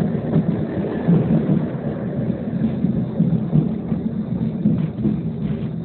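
Tram running along the track, heard from inside the passenger car: a steady low rumble of wheels on rails and running gear.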